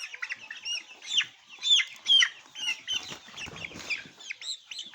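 A flock of six-week-old chickens calling, with many short, high calls overlapping in a constant chorus.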